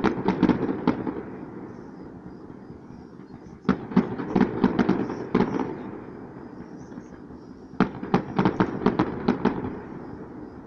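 Aerial fireworks shells bursting: three volleys of rapid bangs, about four seconds apart, each trailing off in an echo.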